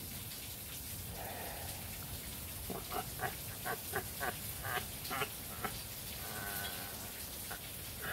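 A high cackling laugh: about nine short, pitched cackles at roughly three a second, starting a little under three seconds in, followed by a faint thin held tone near the end.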